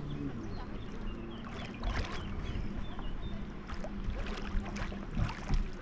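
Sea water splashing and lapping around a camera at the surface as a swimmer does breaststroke, with a few sharper splashes in the second half. A low steady hum runs underneath.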